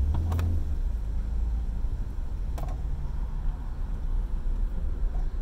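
Car engine running with a low, steady rumble, heard from inside the cabin as the car pulls forward in a slow queue; the rumble is a little stronger in the first second as it moves off. Two light clicks, one near the start and one about two and a half seconds in.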